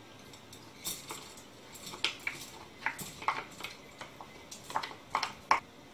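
A wooden spoon scraping and knocking against a bowl as washed red lentils are pushed into a stainless steel pot: a run of irregular light clicks and scrapes.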